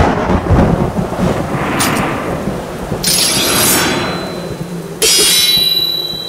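Katana sound effects: a sudden loud rumbling hit, then bright metallic blade strikes about three and five seconds in, each with a high ring, the second ring lingering.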